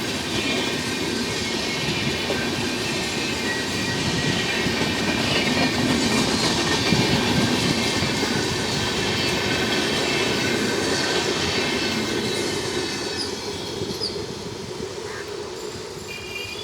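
Passenger train rolling past on its rails, wheels clattering over the track with thin high squeals, loudest about seven seconds in and fading towards the end as it moves away.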